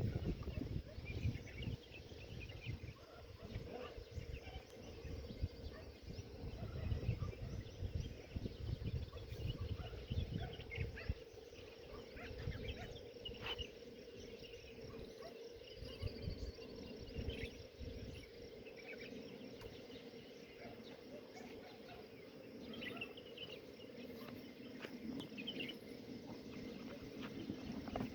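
Quiet outdoor ambience: gusty low rumble, strongest in the first half, with faint scattered short chirps and a faint steady hum.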